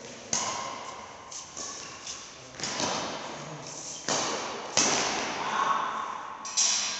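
Badminton rally: rackets striking a shuttlecock, about five sharp hits spaced one to two seconds apart, each ringing on in the echo of a large hall.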